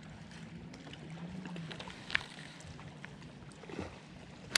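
Bass boat's electric trolling motor humming faintly and steadily, with light water and wind noise. A few sharp clicks from handling the rod and reel come about two seconds in and, loudest, just before the end.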